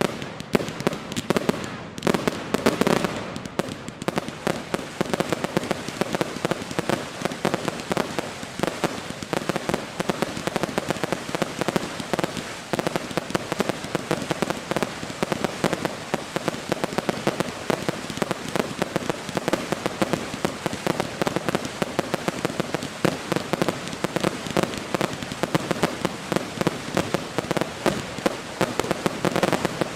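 Fireworks display with a dense, continuous run of bangs and crackling bursts.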